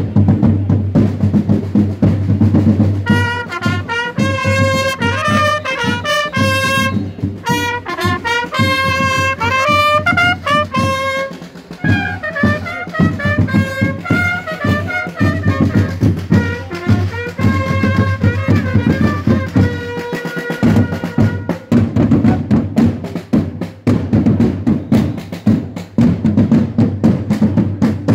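Parade drums beating a steady marching rhythm, with long straight herald trumpets sounding a call of several notes over them from about three seconds in until about two-thirds of the way through; after that the drums go on alone.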